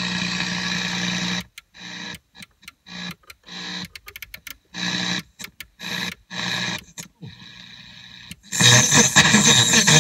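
Albatroz II car radio seeking through the AM band: short bursts of static and hum broken by muted gaps as the tuner steps from station to station. A much louder station comes in about eight and a half seconds in.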